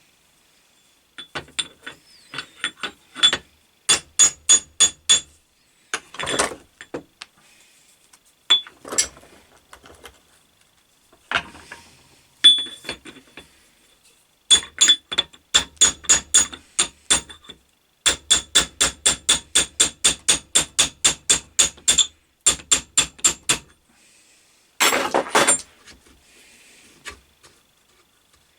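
Hand tools working on a lathe steady rest's fingers and adjusting threads: runs of sharp metallic clicks or taps, about four a second, each with a brief ringing note. Now and then there is a longer rasping burst, the largest about 25 seconds in.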